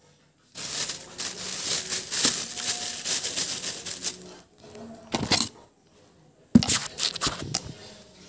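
Thin plastic bags crinkling and rustling as they are handled, in a long stretch at first and then in shorter bursts, with a few sharp knocks near the end.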